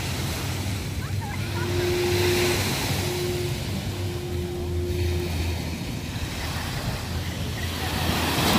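Surf washing onto a sandy beach, with wind on the microphone. A steady low tone sounds three times in the middle, the last the longest.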